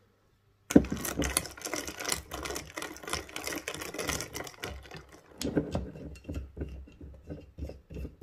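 A metal spoon stirring an iced coffee in a tall glass, ice cubes clinking and rattling rapidly against the glass. It starts suddenly about a second in and becomes sparser and slower toward the end.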